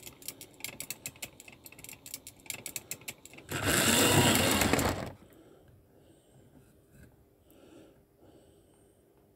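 Hornby model railway coaches rolling along OO-gauge track, their wheels making a rapid, even clicking over the rail joints and points. About three and a half seconds in, a loud rushing noise lasts about a second and a half as a coach passes right by the microphone, then the running fades to faint clicks.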